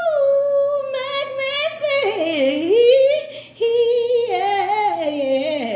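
A woman singing solo: long held notes with vibrato that slide down and up in a wordless soul-style run. The voice breaks off briefly about three and a half seconds in, then comes back on a held note.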